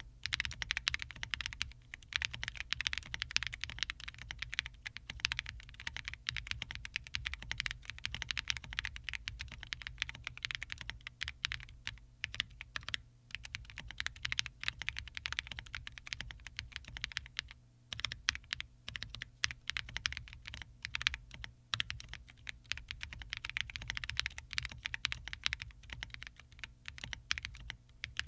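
QK75 mechanical keyboard with Akko snow blue grey linear switches and NicePBT PBT keycaps, typed on quickly and continuously with a couple of brief pauses. The case and plate foam damp the keystrokes.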